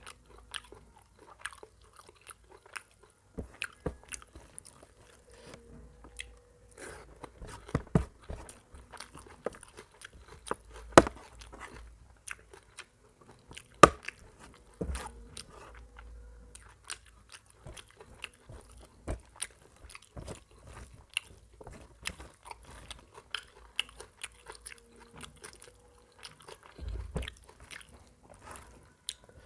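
Close-up eating sounds of mutton curry and rice eaten by hand: chewing and wet mouth smacks, with sharp clicks, a few of them louder, and squelching as fingers mix curry into the rice on a steel plate.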